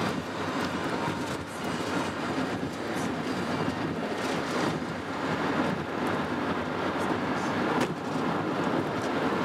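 Steady road and tyre rumble inside a moving car's cabin.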